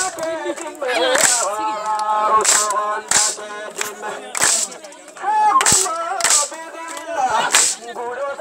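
Several voices singing and calling for a village circle dance, broken by sharp cracks about once a second at an uneven beat, eight or so in all.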